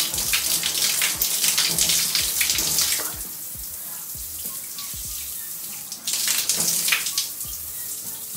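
Handheld shower head spraying at full pressure, the water splattering against a face. The spray is heaviest for the first three seconds, eases off, then comes on hard again briefly about six seconds in.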